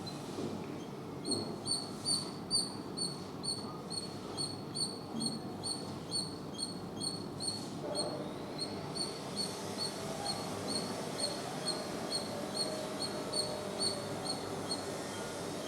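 Squirrel calling: a steady series of short, high chirps, about two or three a second, starting about a second in and running on without a break.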